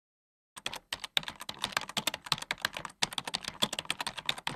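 Rapid computer keyboard typing, many quick key clicks in an uneven stream, starting about half a second in.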